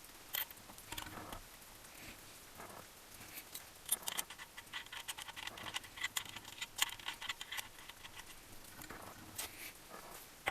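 Light clicks, taps and small scrapes of metal engine parts and hand tools being handled during engine assembly, in a quick flurry of ticking clicks in the middle, sparser before and after.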